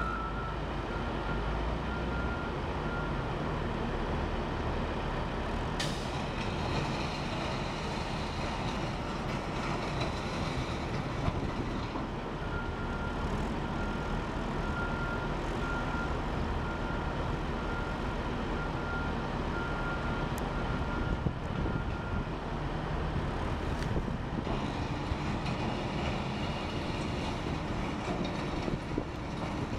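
Volvo wheel loader's diesel engine running steadily under load, with a reversing alarm beeping in a regular pulse for the first few seconds and again for about ten seconds in the middle.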